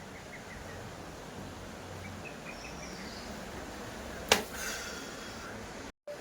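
Quiet outdoor ambience with a few faint, short bird chirps, and one sharp click or knock a little over four seconds in. The sound cuts out briefly just before the end.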